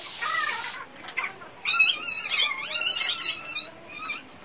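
A short, loud hiss about a second long, then a run of high-pitched wavering animal cries lasting about two seconds.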